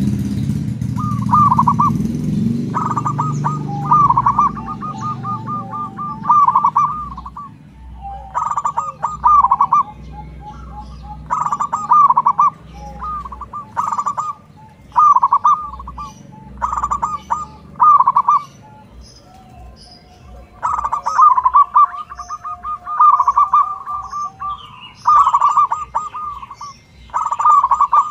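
Zebra dove (perkutut) cooing: a long run of rapid staccato coo phrases, each a quick string of pulses, repeated every second or two with short pauses between.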